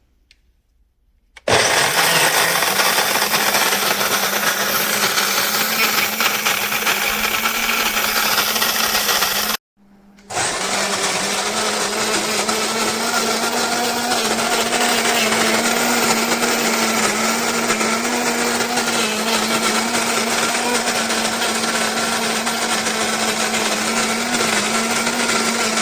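Wancle flat burr electric coffee grinder running with a steady motor whine. It starts about a second and a half in, stops briefly just under ten seconds in, then starts again and keeps running.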